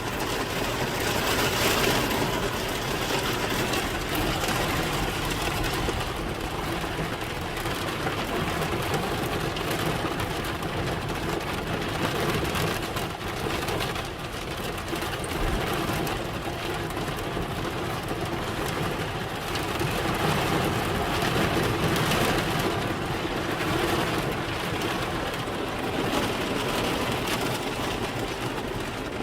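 Heavy rain and a car's wet-road tyre and engine noise, heard from inside the moving vehicle; a steady hiss.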